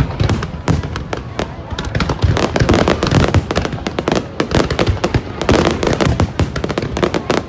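Fireworks going off in rapid succession: a dense, continuous volley of loud bangs and crackles with no break.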